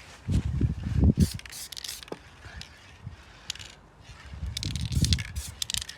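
Aerosol spray can of silver paint hissing in short, irregular bursts. Low rumbling thumps are heard twice, shortly after the start and again after about four seconds.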